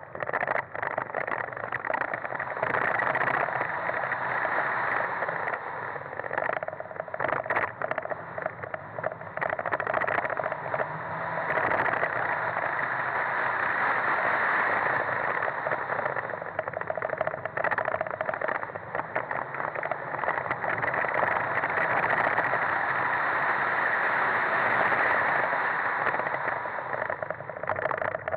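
Fiat Punto HGT driven hard on a rally sprint: engine running under load, mixed with heavy wind and road noise on a camera mounted outside on the car. The sound dips briefly a few times.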